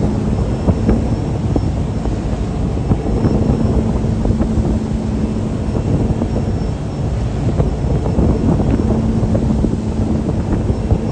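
Tow boat's engine running steadily at speed, with a faint hum that comes and goes, under heavy wind buffeting on the microphone and the rush of the wake.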